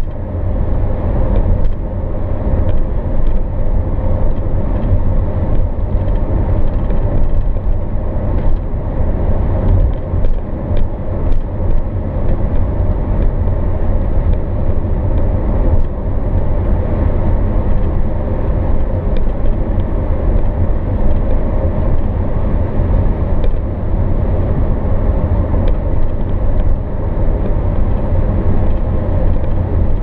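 Steady road noise inside a moving car's cabin: a continuous low rumble of engine and tyres on the highway, with a few faint ticks scattered through it.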